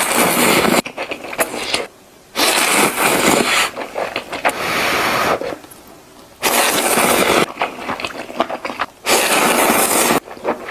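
Crunchy food being bitten and chewed close to the microphone, in loud bursts of about one to two seconds with short pauses between.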